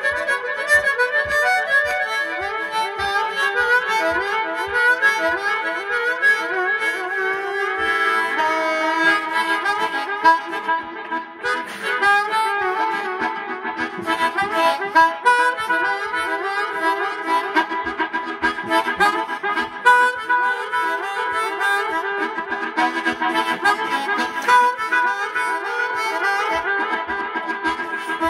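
Amplified blues harmonica played cupped against a bullet microphone, run through digital delay so each phrase echoes and overlaps into a continuous wash of held and bending notes. A faint low thump keeps time about twice a second underneath.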